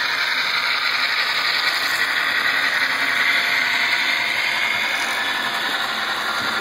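HO-scale model coal train of hopper cars rolling past on the layout: a steady rushing clatter of small metal wheels on the rails, with the hum of the locomotive motors.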